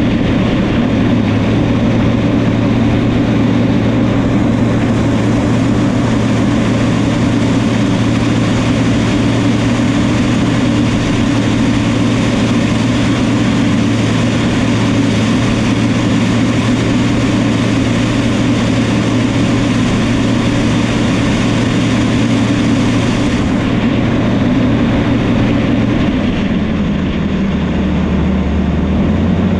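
New Holland crawler bulldozer's diesel engine running steadily under load while the dozer works the ground. Near the end the engine note drops lower, then picks back up.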